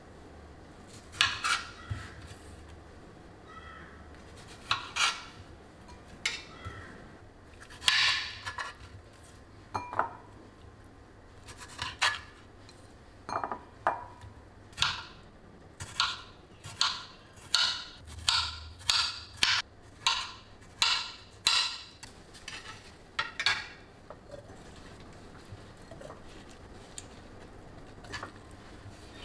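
Chef's knife slicing strawberries, its blade knocking on a wooden cutting board: scattered strokes at first, then a quick run of about two a second in the middle, easing off near the end.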